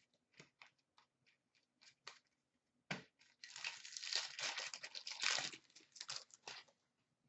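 A 2015-16 Upper Deck hockey card pack opened by hand: a few light clicks and rustles of cards, then a sharp snap about three seconds in, followed by about three seconds of the wrapper tearing and crinkling.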